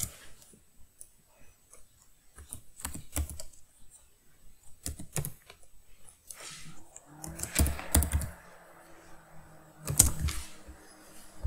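Computer keyboard keys clicking in scattered taps as a short name is typed, with a louder click about ten seconds in.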